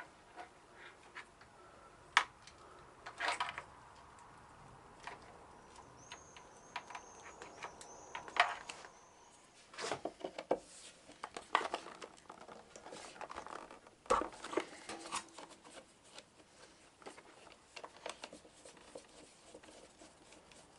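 Scattered small clicks, taps and plastic rustling of hands working motorcycle wiring: electrical plug connectors being handled and pushed together, and a screwdriver working at the battery terminals. The sharpest clicks come a couple of seconds in, about eight seconds in and near the middle.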